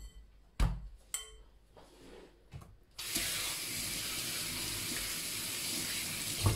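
A couple of short knocks, then a kitchen tap running steadily into a sink from about three seconds in, ending with a thump.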